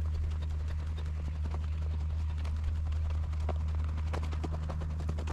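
Footsteps of a person walking at a steady pace, a short tread every half second or so, over a steady low rumble.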